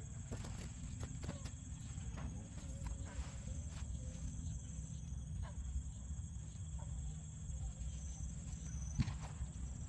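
Outdoor lakeside ambience: a steady high insect drone over a low rumble, with scattered light clicks and a sharper click about nine seconds in.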